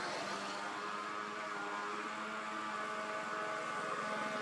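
A steady motor hum holding a nearly even pitch.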